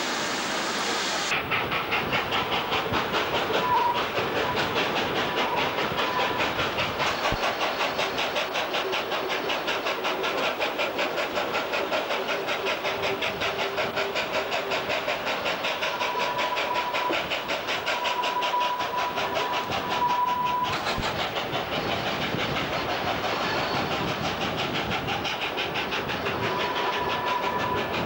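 SAR 500-class steam locomotive 520 working its train, heard from an open carriage window: a fast, even beat of exhaust chuffs over the noise of the carriages running on the rails, with a thin high tone coming and going. In the first second, water gushes from a water column into the locomotive's tender.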